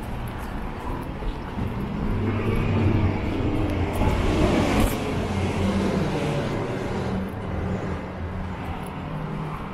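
Engine of a motor vehicle passing close by, building to a peak about halfway through and then easing off, over steady outdoor traffic noise.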